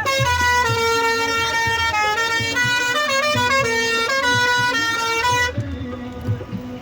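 A musical vehicle horn playing a tune, stepping up and down through a string of notes for about five and a half seconds, then cutting off suddenly.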